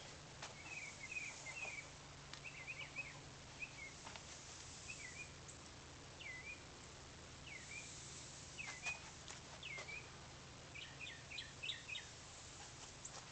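Faint birdsong: short slurred chirps coming in small groups, over a low steady hum, with a few light clicks.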